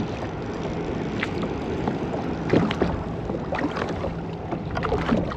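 Water lapping and sloshing against a kayak hull, with irregular small knocks and splashes, strongest about halfway through, over wind noise on the microphone.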